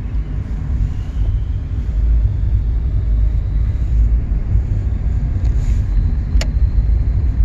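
Steady low rumble of road and wind noise from a vehicle driving along, with one sharp click about six seconds in.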